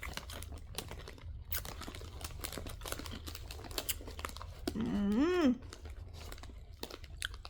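Crisp crunching and crinkling of nacho cheese tortilla chips being eaten from their bag, with many small sharp crackles. A short hummed "mmm" of enjoyment comes about five seconds in.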